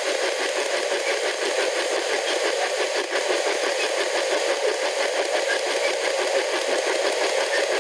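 P-SB11 spirit box, a dual-channel sweep radio, scanning rapidly through AM and FM stations: a steady, fast-chopping stream of radio static.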